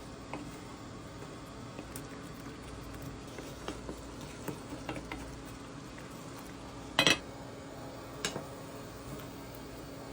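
Kitchenware clinking: scattered light clicks of utensils and dishes, with a louder clatter about seven seconds in and a smaller one a second later, over a steady low hum.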